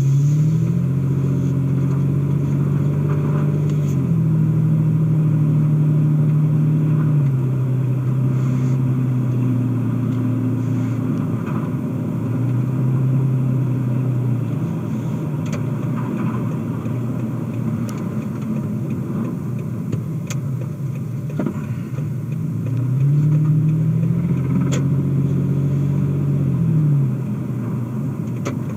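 Car engine and tyre noise heard from inside the cabin as the car drives at low speed. The engine hum rises as the car speeds up near the start and again near the end, and shifts pitch in steps in between. There are a few faint clicks.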